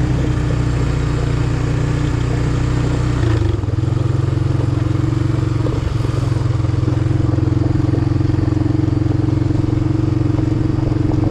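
A vehicle engine running steadily and close, its note shifting lower about three seconds in and then holding steady.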